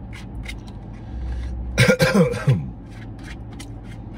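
A man coughing and clearing his throat while eating, a short harsh fit of three quick bursts about two seconds in.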